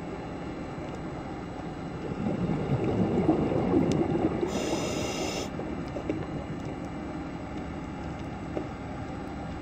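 Steady low underwater rumble that swells louder for a few seconds from about two seconds in, with a brief high buzzing tone near the middle.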